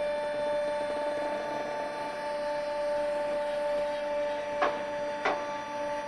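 Trash compactor for cardboard and paper running with a steady machine hum at two constant pitches. Two short knocks come less than a second apart near the end.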